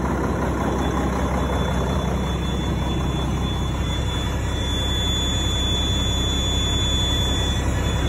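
Mack CH600 tractor's heavy diesel engine idling steadily just after a cold start, with a thin high whine running over the idle.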